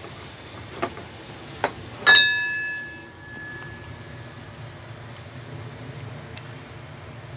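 Kitchen clatter: a couple of light clicks, then, about two seconds in, a loud clink of a hard object that rings on and fades over about a second. A steady low hum runs underneath.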